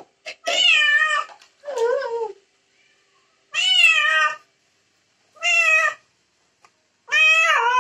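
A wet white cat meowing loudly and repeatedly, five drawn-out meows rising and falling in pitch, the second one lower. The cat is protesting being held and soaped during a bath.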